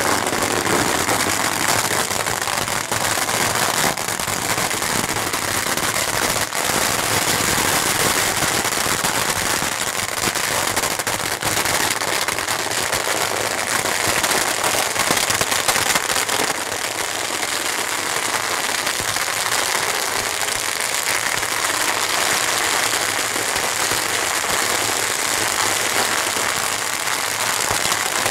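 Strings of firecrackers going off without a break in a dense, rapid crackle around the base of the royal boat as the pyre is lit.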